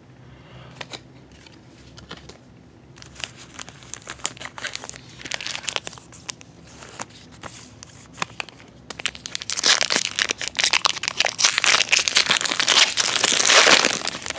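Foil baseball card pack wrapper crinkling in the hands, then crinkling and tearing loudly from about nine seconds in as the pack is ripped open.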